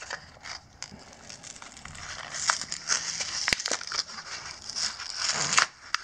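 A plastic-and-card blister pack of brake pads being crinkled and pried open by hand. The plastic and card crackle irregularly, with a few sharp snaps; the loudest comes about three and a half seconds in.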